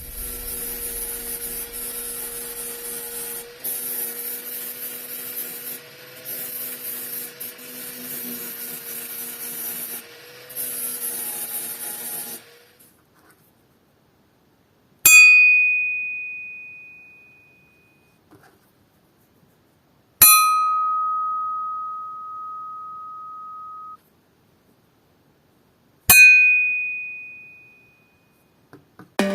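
An electric power tool runs in several short spells with a steady hum and a high hiss, then stops. Then the steel ax head is struck three times, a few seconds apart, each strike ringing with a single clear tone that dies away.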